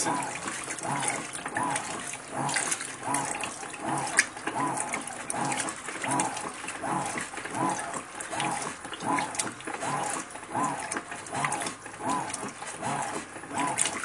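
Electrolux Ecologic top-load washer agitating a water-filled load of bedding and towels: the agitator motor whirs up and down in pitch with each back-and-forth stroke, about three strokes every two seconds, with water sloshing.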